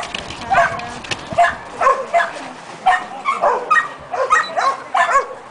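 A dog barking over and over in short, high barks, about two to three a second.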